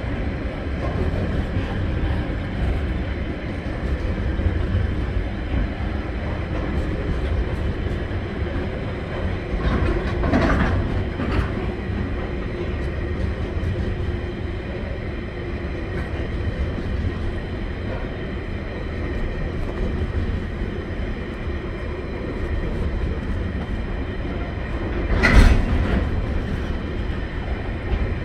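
Container wagons of a long freight train rolling past at steady speed: a continuous rumble with wheel clickety-clack on the rails. A few louder knocks come about ten seconds in, and a sharper, louder one comes near the end.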